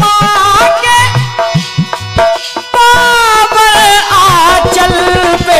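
Harmonium-led Hindi folk devotional music with dholak drum beats and a man's singing voice.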